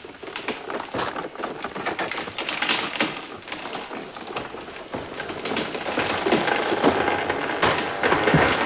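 Wood cracking and snapping in a dense run of sharp clicks as a cut rainforest tree begins to give way, growing louder toward the end.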